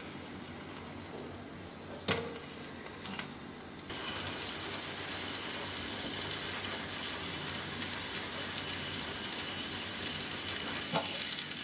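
Whole mango roasting directly over a gas burner flame: a steady hiss and sizzle as the skin chars, getting louder about four seconds in. A sharp knock about two seconds in and a click near the end.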